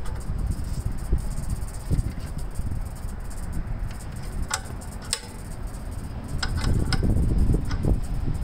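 Uneven low rumble of wind buffeting the microphone, with a few sharp metallic clicks, twice about halfway through and a quick cluster a little later, as hands work a fuel-line fitting on a Gravely tractor engine.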